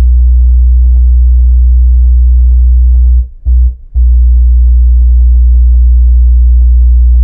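Kenwood KFC-W112S 12-inch subwoofer in a bass-reflex box playing a loud, steady low sine test tone of about 60 Hz at 3 watts inside a car's cabin, for an SPL measurement that reads about 122 dB. The tone cuts out twice, briefly, a little after three seconds in.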